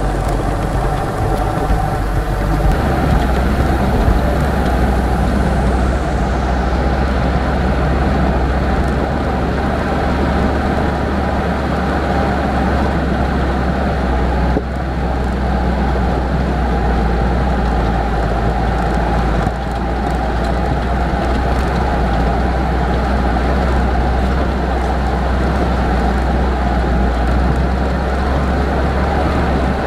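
Hyundai Terracan 4x4 driving, a steady engine and road rumble with no break.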